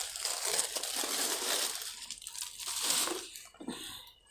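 Potting soil being mixed by hand, a continuous gritty, crunching rustle that thins out near the end.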